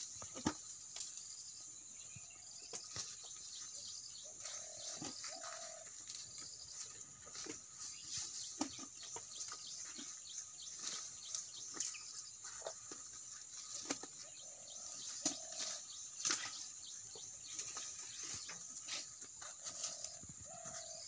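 Asian elephants browsing in scrub: scattered sharp cracks and snaps of branches and rustling leaves as they feed. Under it there is a steady high insect buzz and a short two-note call that repeats every few seconds.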